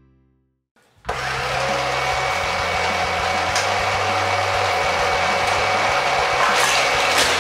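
Battery-powered booster motors of a Hot Wheels Corkscrew Crash track start suddenly about a second in, then run with a steady whirring hum.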